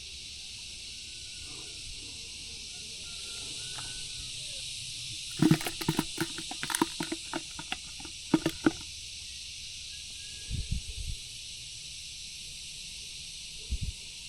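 Steady high hiss of insects. In the middle come a quick run of sharp knocks and clicks, the loudest sounds here, followed later by a few soft low thumps.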